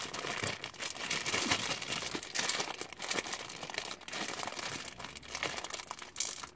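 Crinkly plastic candy packet of Whoppers malted milk eggs being crumpled and pulled at to tear it open, a busy, irregular crackling.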